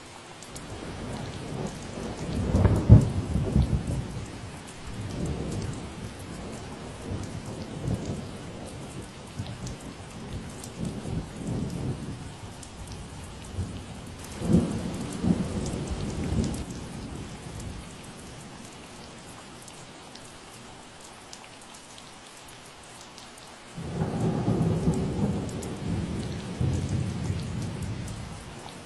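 Steady rain falling, with several low rumbles that swell and fade over it. The loudest rumble comes a few seconds in, and another starts abruptly near the end.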